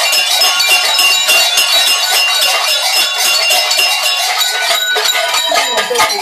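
Many large bells clanging and ringing without a break, shaken as costumed devils (čerti, Krampus-style) move about.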